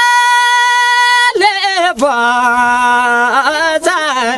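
Nepali Deuda folk singing: a voice holding long, steady notes, a high held note in the first second, then after a short turn a lower note held for over a second.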